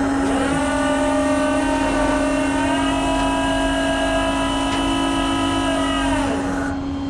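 Tow truck's hydraulic pump and winch running as the disabled truck is pulled on. A whine rises in pitch about a second in, holds steady, then winds down near the end, over a steady low hum.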